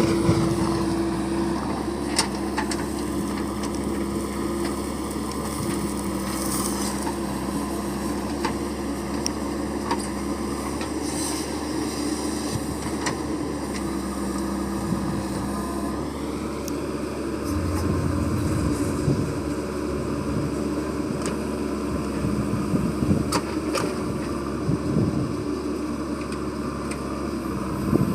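JCB 3DX backhoe loader's diesel engine running steadily while working, its note shifting a little about halfway through, with scattered light clicks and knocks.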